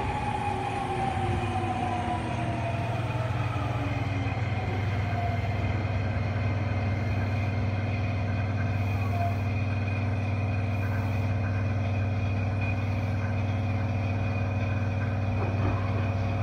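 Subway car's Toyo IGBT-VVVF inverter whining in a falling pitch as the train brakes into a station, settling into a steady low hum as the car comes to a stop.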